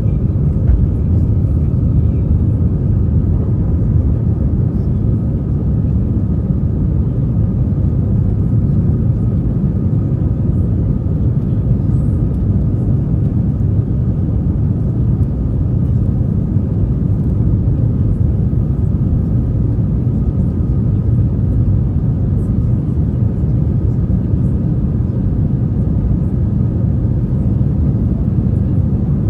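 Airbus A320 cabin noise: a steady, even rumble of the jet engines and airflow heard from inside the cabin, with a faint steady whine above it.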